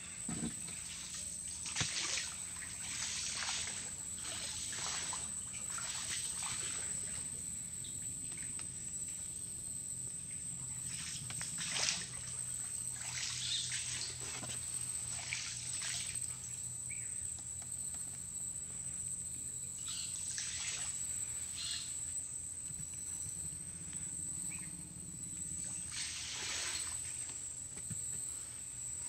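Water splashing and sloshing around a small boat moving through a mangrove channel, in irregular bursts, several about a second apart at first and more scattered later. Underneath run a steady low hum and a thin, steady high-pitched tone.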